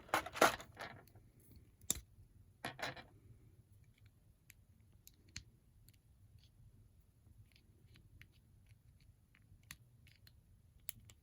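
Small plastic clicks and handling noises from an action figure being handled and posed: a few louder clicks and rustles in the first three seconds, then scattered faint clicks.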